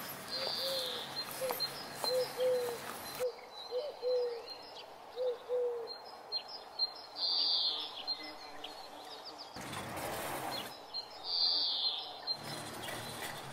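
Outdoor birdsong: small birds chirp high and fast while a low, arched cooing note repeats, often in pairs, over the first half. A brief rush of noise rises and fades about ten seconds in.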